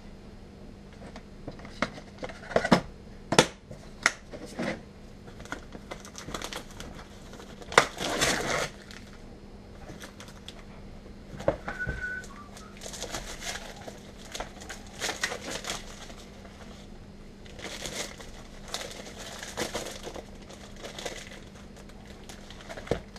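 Clear plastic bag and packaging crinkling as a wooden birdhouse kit is unpacked by hand. A few sharp knocks and taps of things set down on the workbench come in the first few seconds, and a louder rustle follows about eight seconds in.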